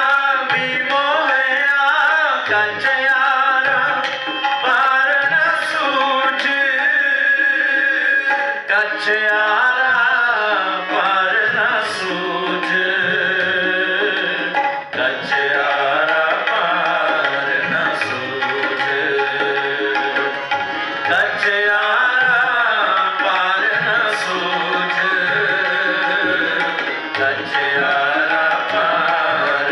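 Devotional kirtan: men's voices singing a hymn over steady held harmonium tones, with tabla accompaniment and a bright high stroke roughly every six seconds.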